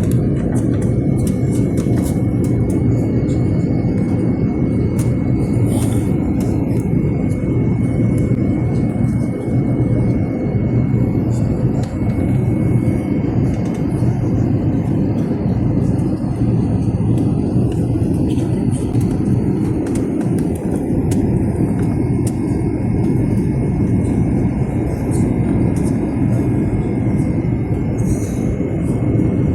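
Airliner cabin noise in flight: a steady, loud low drone of engines and airflow, with a faint steady high whine.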